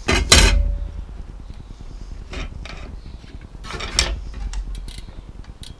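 Metallic clinks and clatter of steel bicycle cassette parts being handled and fitted onto a rear hub's freehub: one loud clatter near the start, then a few lighter clinks about two and a half and four seconds in.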